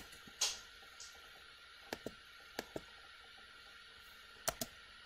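Computer mouse clicking: three pairs of quick, sharp clicks over faint room hiss, after a short soft breathy sound near the start.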